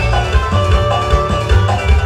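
Latin tropical dance music with a steady bass-and-drum beat and melody over it.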